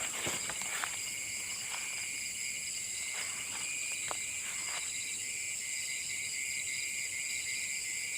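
Steady, high-pitched chorus of night insects, a layered shrill drone at several pitches, with a few faint clicks or rustles in the first half.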